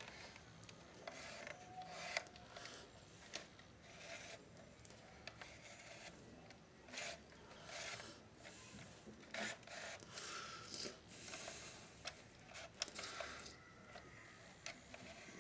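Faint rubbing, scraping and a few small clicks as the case of a Philips D6350 radio cassette recorder is turned over and handled.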